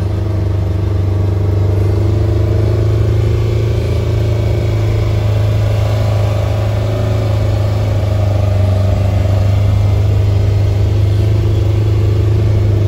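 Side-by-side utility vehicle's engine running while it drives, heard from inside the cab as a steady low drone.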